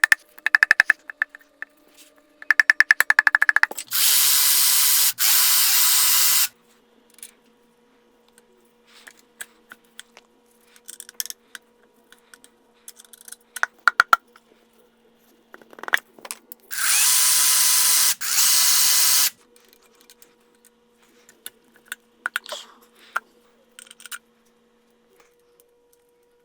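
A power tool runs in two bursts of about two and a half seconds each, each briefly cut out partway, with rapid clicking and scattered metal knocks and clatter between them.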